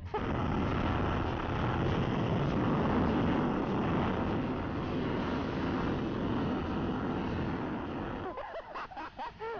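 Steady rushing wind and road noise of a moving motorcycle on the rider's microphone, dying down near the end.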